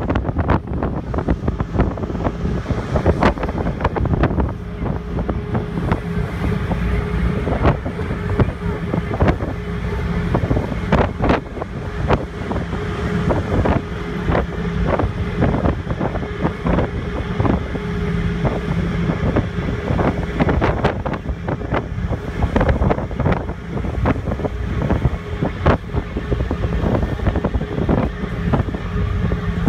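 Wind buffeting the microphone on the open deck of a moving ferry, with frequent crackling gusts over the steady low hum of the boat's engines.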